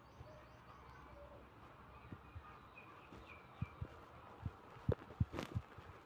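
Faint small-bird chirps in the background, over soft irregular knocks and taps from coloured-pencil strokes on paper on a table. A brief scratchy burst comes about five and a half seconds in.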